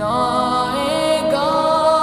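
Slowed-and-reverb naat: a male voice singing long held notes that slide up into each new pitch, smeared by heavy reverb.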